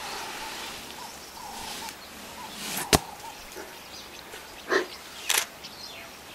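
African elephant rubbing its body against a tree trunk: hide scraping on bark. The scrape swells into one sharp crack about three seconds in, followed by two shorter scrapes near the end, over faint bird chirps.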